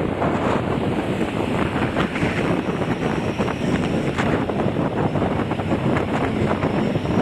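Wind rushing and buffeting over the microphone of a moving vehicle, with road noise underneath, steady throughout.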